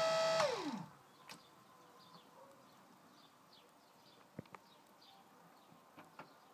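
Electric hydraulic pump motor of a tilt and trim ram whining at a steady pitch, then winding down to a stop within the first second. After that only faint background with a few small clicks and faint high chirps.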